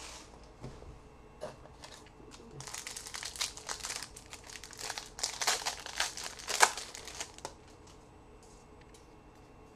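Trading card pack wrapper being torn open and crinkled by hand: a few soft clicks, then about five seconds of dense crackling with one sharp crack near the end, before it goes quiet.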